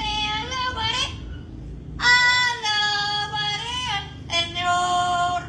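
An Amazon parrot singing in a high, childlike voice: three held, wavering sung phrases, the first ending about a second in and the other two following after short pauses.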